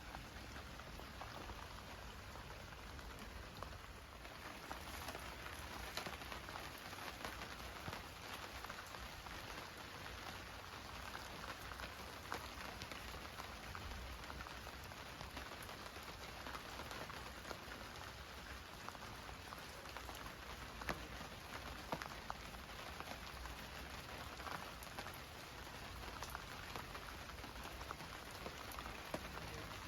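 Steady rainfall, a constant hiss with scattered sharper drips and taps of drops landing on hard surfaces.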